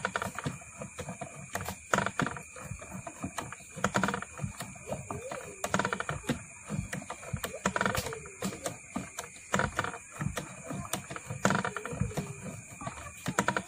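Geared coil-winding jig turning as enamelled copper wire is wound onto a transformer bobbin, giving irregular clicking and clattering that stops near the end.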